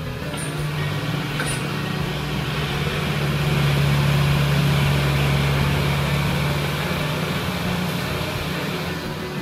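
Diesel engines of a Kubota tractor and a Kubota combine harvester running hard under load as the combine tows the stuck tractor out of mud on a cable. The steady engine drone swells to its loudest about four seconds in, then eases.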